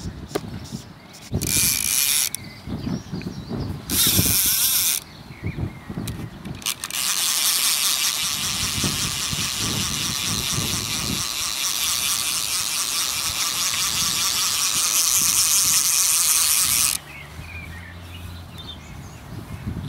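Fly reel's click-and-pawl drag clicking rapidly as a hooked trout pulls line off: two short runs in the first five seconds, then a long run of about ten seconds that cuts off suddenly.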